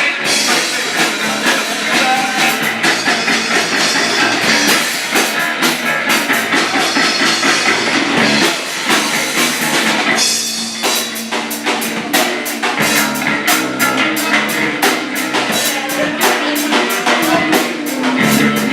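Hip-hop track playing, with a steady drum beat. The drum hits come faster and more evenly in the second half.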